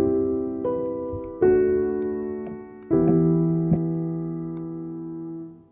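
Background piano music: slow chords, each struck and left to fade.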